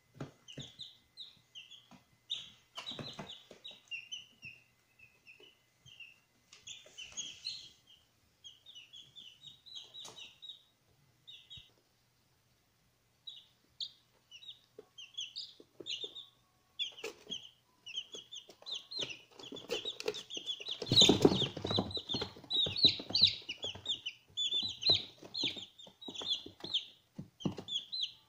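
Newly hatched Ayam Cemani chicks peeping constantly in rapid, short, high calls, with a pause of about a second and a half near the middle. About three quarters of the way through, a burst of rustling and knocking is the loudest sound.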